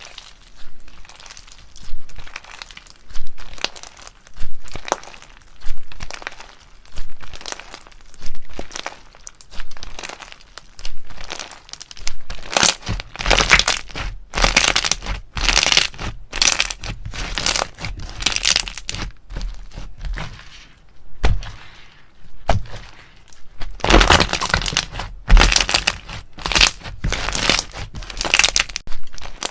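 Slime being squished and pressed, crackling and popping in repeated bursts about once a second.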